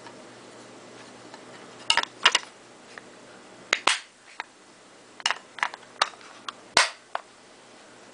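Irregular sharp clicks and clacks, about nine over five seconds, from handling the mostly plastic Crosman 357 pellet revolver.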